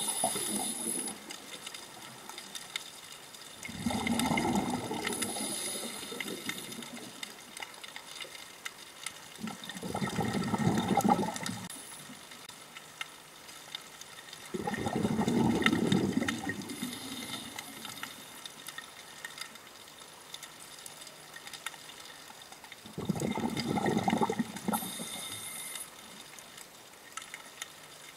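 Scuba regulator exhalations underwater: a bubbling rush of exhaled air about every five seconds, four full breaths plus the tail of one at the start, with faint crackling clicks in between.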